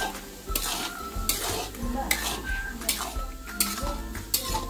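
Metal spoon stirring and scraping a thick paste around a metal kadai, in repeated strokes about one every three-quarters of a second.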